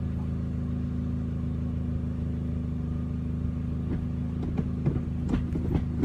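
Toyota Corolla TSport's engine idling steadily, heard from inside the cabin. In the last second and a half come several short clicks and clunks, which fit the manual gear lever being snicked through the gates of its quick-shift linkage.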